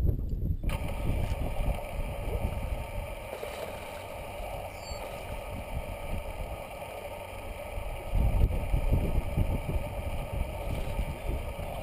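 Wind buffeting the boat-mounted camera's microphone, gustier in the second half. About a second in, a steady electric motor hum starts and holds: the bass boat's bow-mounted trolling motor running.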